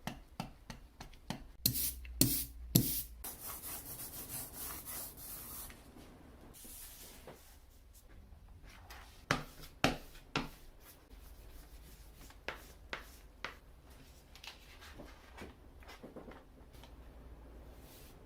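Hand printing of a linocut: tools and materials handled with sharp clicks and knocks, and a stretch of steady rubbing about three to six seconds in.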